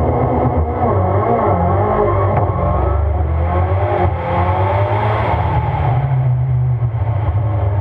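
Rallycross race car's engine heard on board at speed, revving up and down through gear changes, then settling to a steadier, lower note about six seconds in, over road and wind noise.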